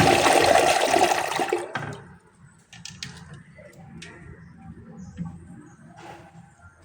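Briggs Fonte Pure elongated toilet flushing: a loud rush of water that dies away about two seconds in, leaving quieter water sounds and a few light clicks.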